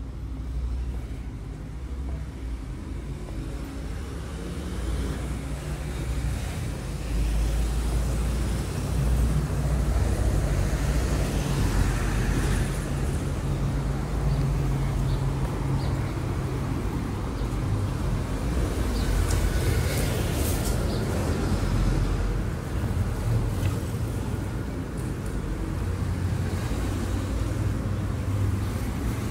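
Street traffic: cars and a city bus running past as a steady low rumble that grows louder about seven seconds in, with a few sharp clicks about twenty seconds in.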